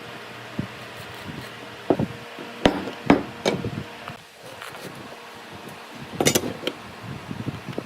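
Workshop knocks and taps: a few sharp wooden knocks spread irregularly, the strongest a little after six seconds, over a steady low hum.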